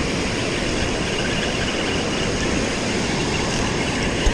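Steady rush of water pouring through a spillway, with a brief low thump near the end.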